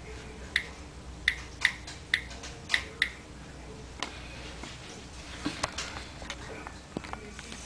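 iPod touch 2G's on-screen keyboard clicking as a search is typed: six sharp, quick clicks in about two and a half seconds, then one more a second later. Fainter taps and handling knocks follow near the end.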